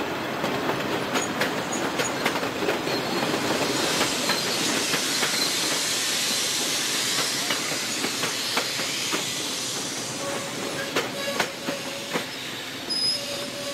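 VIA Rail passenger coaches rolling past close by, a steady rushing hiss of wheels on rail with scattered clicks over the rail joints. The rush eases around ten seconds in as the last car goes by, leaving a few sharper knocks.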